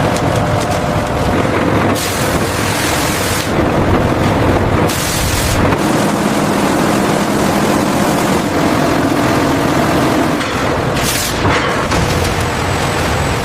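Loud, steady factory machinery noise whose character shifts abruptly several times.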